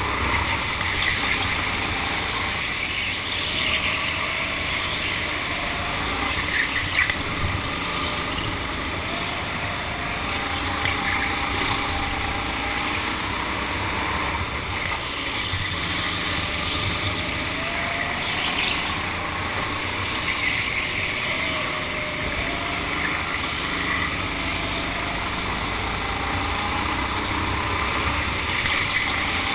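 Go-kart motor running at speed around a track, its pitch rising and falling again and again as the kart speeds up and slows for corners, over a steady rush of wind and tyre noise.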